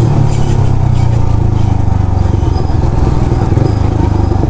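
Yamaha R15M's single-cylinder engine running steadily under way through an aftermarket Akrapovic exhaust, a low even drone.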